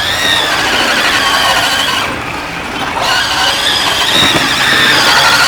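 Small combat robot's electric drive motors whining, a high squeal whose pitch rises and falls as it drives, over a low steady hum.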